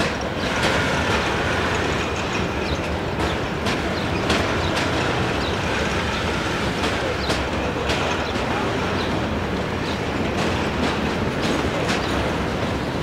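CSX freight train of loaded gondola cars rolling slowly past: a steady rumble of steel wheels on rail, with irregular clicks and clacks from the wheels and a few faint short wheel squeals.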